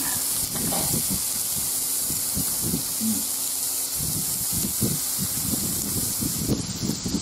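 Thin slices of beef sizzling on an electric indoor grill plate: a steady hiss with irregular crackling.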